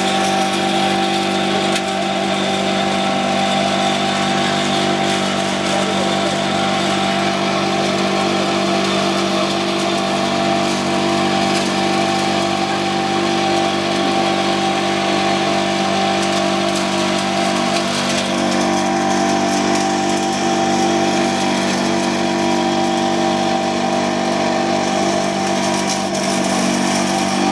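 Leaf chopper-grinder machine running steadily at constant speed, shredding leaves, with a slight change in its tone about two-thirds of the way through.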